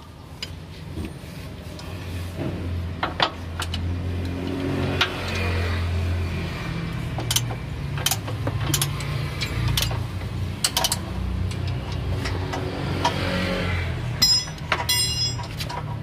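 A vehicle engine running, a low steady hum that grows louder over the first few seconds, with scattered sharp metallic clicks from hand tools working under the car.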